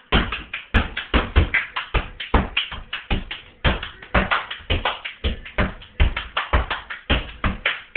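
A fast, uneven beat of sharp claps and thumps, about five a second, from dancers clapping and stomping on a wooden floor.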